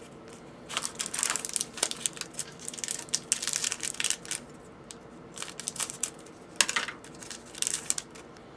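Foil trading-card pack wrappers crinkling and crackling as a pack is cut open with scissors and handled. The sound comes in two stretches with a short lull in the middle.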